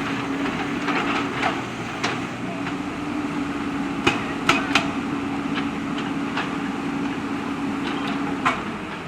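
JCB backhoe loader working in stones: its diesel engine runs with a steady hum while the bucket knocks against rocks in sharp, irregular clanks, about nine in all. The hum breaks off briefly after about two seconds and stops near the end.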